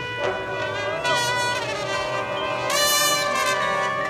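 Drum and bugle corps horn line playing held brass chords, which swell louder about a second in and again around three seconds in.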